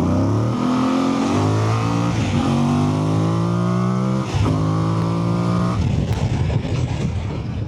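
Voge DS800X Rally's parallel-twin engine through its standard exhaust, accelerating through the gears. The pitch climbs, with shifts about two and four seconds in, and the note turns rough and uneven near the end as the throttle comes off.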